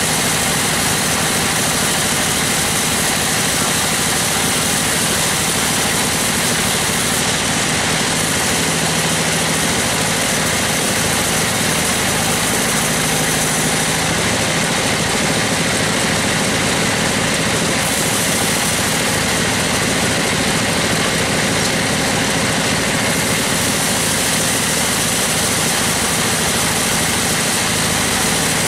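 Band sawmill running steadily, its band blade cutting lengthwise through a gmelina log, with a constant mechanical drone.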